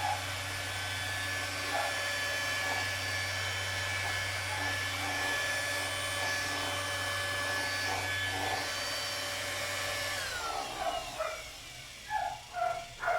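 Tolsen random orbital sander running steadily with a vacuum drawing through its dust port, then switched off about ten seconds in and winding down with a falling whine. A dog barks a few times near the end.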